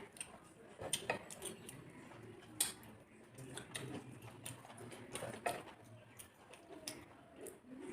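Scattered light clicks and clinks of a dinner plate and food being handled during a meal, a few sharper knocks standing out.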